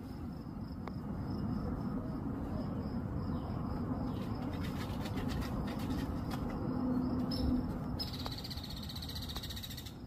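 Outdoor ambience: a steady low rumble, with a high, fast-pulsing insect buzz that comes in strongly about two seconds before the end.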